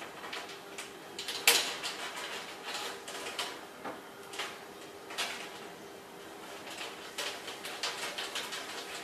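Hanging hooks being clipped onto the edge of metal grow-light reflector sheets: irregular clicks and light rattles, with one sharp click about one and a half seconds in.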